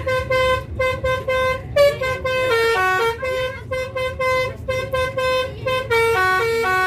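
A bus's basuri musical air horn playing a quick melody of short notes stepping up and down in pitch, over a low rumble.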